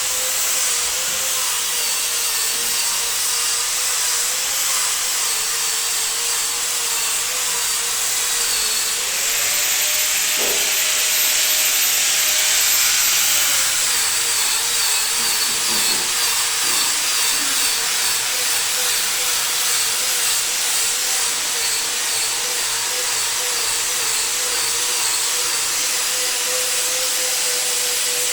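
A power tool running steadily with a strong hiss and a wavering motor tone; from about nine to thirteen seconds in its pitch rises with a high whine, then settles back.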